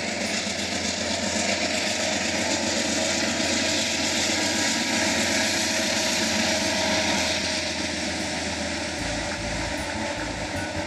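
Amtrak passenger train passing below: the diesel locomotive's engine running and the steady noise of the wheels on the rails as the cars follow, easing slightly near the end.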